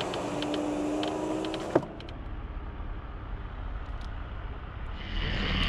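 A small electric motor whirs steadily for almost two seconds and stops with a sharp click, as a car's power window does when it closes. Near the end a louder low rumble with hiss sets in.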